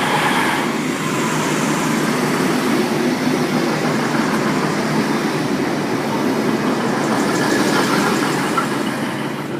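V/Line VLocity diesel multiple unit running steadily close by, a continuous engine hum and rumble.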